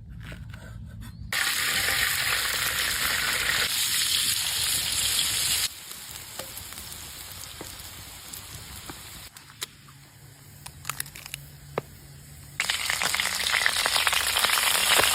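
Food sizzling and frying in a pan: a steady hiss that is loud for a few seconds, drops to a quieter sizzle with a few sharp ticks and pops, then comes back loud near the end, with abrupt cuts between the stretches.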